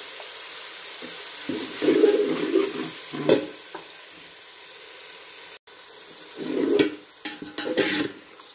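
Meat curry sizzling in hot oil in a steel pot, the hiss slowly dying down, while a metal slotted spatula scrapes and stirs it in several short bouts.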